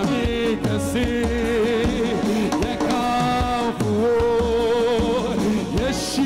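Live gospel band music: a lead melody of long, wavering held notes over a backing with a bass pulse falling about once a second.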